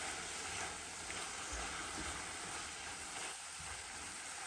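Sliced champignon mushrooms and onions sizzling steadily as they fry in oil in a pan, stirred with a silicone spatula.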